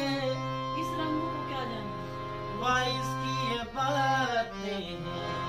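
Harmonium playing a sustained melody over a steady drone, with a man's voice singing two short melodic phrases in the middle, in a ghazal sung to the harmonium.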